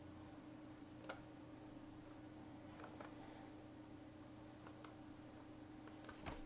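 Faint computer mouse clicks, a few scattered singly and in pairs, over a quiet steady room hum.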